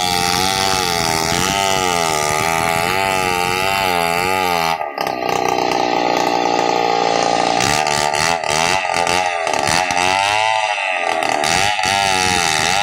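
Gasoline chainsaw ripping lengthwise along a large acacia log, its engine pitch wavering up and down as the chain takes and sheds load. About five seconds in the engine dips for a moment, holds a steadier higher note for a couple of seconds, then wavers again as the cut goes on.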